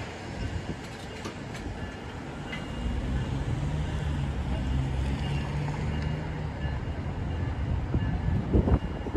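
Amtrak passenger cars rolling past over the crossing, a steady low rumble that grows louder about three seconds in. A weak Western-Cullen-Hayes mechanical crossing bell rings faintly over it, a bell that is dying.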